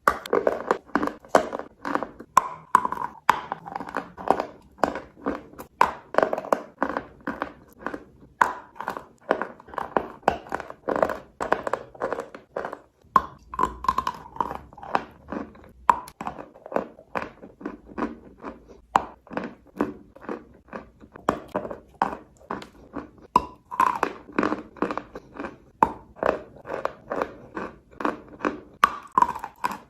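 Crunchy chalk being bitten and chewed close to the microphone: rapid, sharp crunches, several a second, with only brief pauses.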